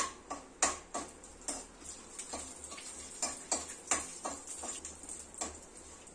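Steel spoon stirring coconut pieces frying in ghee in a kadhai: irregular sharp clicks and taps, a few a second.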